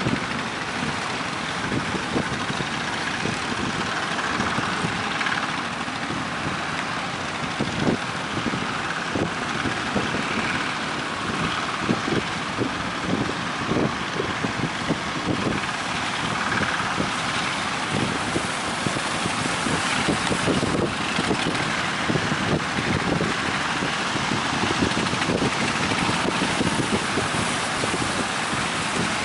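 A boat engine runs steadily under a constant rush of wind buffeting the microphone, with irregular knocks and thumps throughout.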